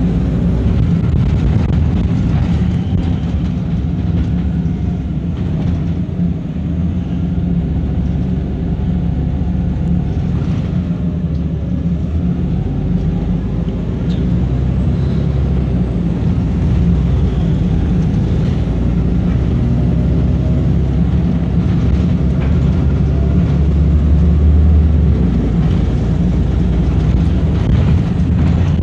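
A Wright Eclipse single-deck bus heard from inside the passenger saloon while on the move: its diesel engine and drivetrain run steadily. The engine note rises and falls a few times.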